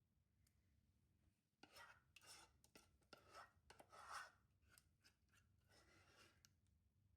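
Faint handling sounds: a run of short scraping and rubbing noises with a few sharp clicks, starting about a second and a half in and stopping shortly before the end.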